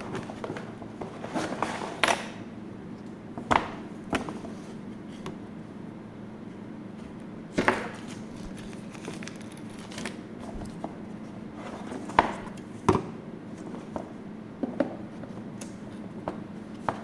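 Packaging and hardware being handled during an unboxing: a dozen or so separate knocks and clicks at irregular intervals, with a low steady hum underneath.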